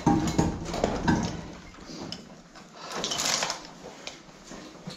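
Scuffs, knocks and clinks of diving gear and boots on a slate floor as a man carrying a scuba cylinder shifts and gets up, busiest in the first second, with a brief hissing rush about three seconds in.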